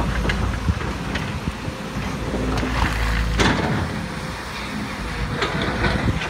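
Volvo hydraulic excavator's diesel engine running steadily, with scattered sharp knocks, the loudest about three and a half seconds in.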